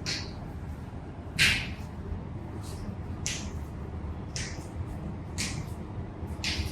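Joints cracking during a chiropractic adjustment: a series of short sharp pops, about one a second, the loudest about a second and a half in.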